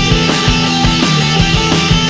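Indie rock music: guitars and a drum kit playing, with drum hits at a regular pace.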